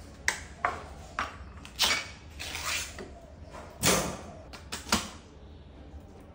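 An opened metal Spam tin being handled, tipped and knocked upside down on a plastic cutting board to free the meat: a string of about eight separate clicks and knocks over five seconds, the loudest around four seconds in.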